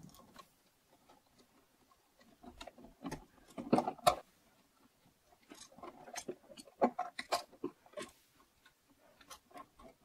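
Scattered faint clicks and scrapes of a screwdriver on the brass terminal screws of a wall light switch as the screws are loosened and the wires unhooked, beginning about two and a half seconds in.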